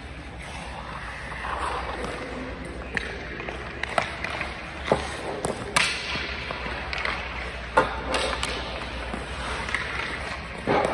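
Hockey stick knocking against the puck and ice, with skate blades scraping the ice, as a young child stickhandles on a rink. Several sharp clacks are spread through it; a louder knock followed by a scraping hiss about six seconds in comes as the child goes down and slides on the ice. A low steady hum sits underneath.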